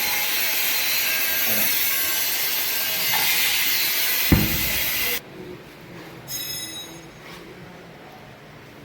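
Steady loud machine hiss with faint tones, cut off suddenly about five seconds in, just after a single thump; a brief high-pitched squeal follows about a second later.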